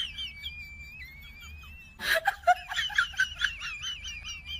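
High-pitched laughter in quick 'ha-ha-ha' bursts, pitched far above a normal voice. It is faint and drawn out at first, then about two seconds in it turns into a louder run of about three laughs a second.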